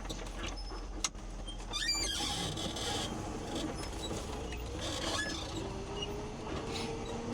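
Cabin noise of a plow pickup truck driving, with a steady low engine and road hum; the engine note rises slowly in the second half. A brief squeak sounds about two seconds in.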